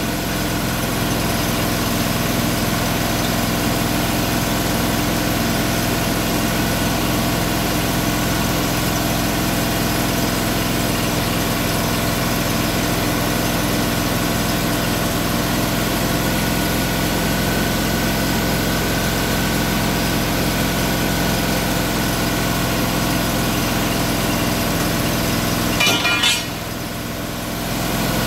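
An engine running steadily at a constant speed. Near the end there are a few sharp clicks and a brief drop in level, then the steady running resumes.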